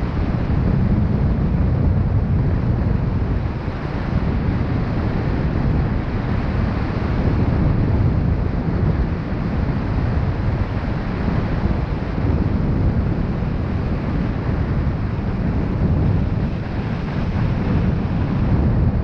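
Wind rushing over the microphone: a steady, low rumbling rush of air that swells and eases every few seconds.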